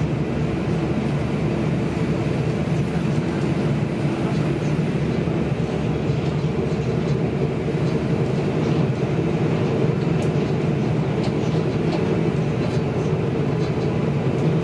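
Steady rumble of a passenger train running along the track, heard from inside the carriage, with a few faint ticks.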